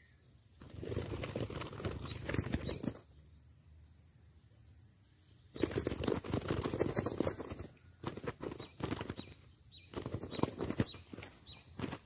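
Spotted dove flapping its wings hard against the ground, in two bouts of fast, loud fluttering: one early and a longer one from about halfway on, as the trapped bird struggles.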